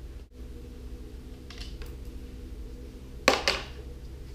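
A few faint clicks and then two sharp knocks in quick succession, about three seconds in, as hands handle parts on a small portable generator, over a steady low hum.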